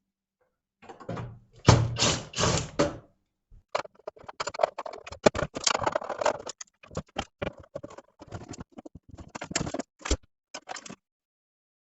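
Handling noise: about two seconds of rustling and knocking with a heavy thud, then, after a short pause, a long run of sharp clicks, scrapes and rustles, with one sharper knock near the end.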